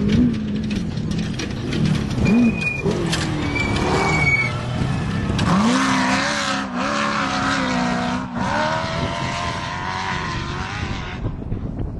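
Off-road race vehicle engine revving, its pitch rising and falling as it drives past. The engine noise grows louder and fuller from about halfway, then stops abruptly about a second before the end.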